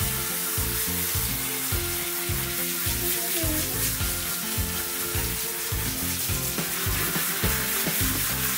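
Handheld shower head spraying water onto a wet dog's coat in a grooming bath: a steady hiss, over background music with a steady bass beat.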